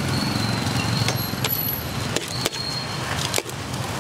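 Steady low hum of street traffic with several sharp clicks and clatter from foam takeaway boxes being snapped shut and handled at a food cart.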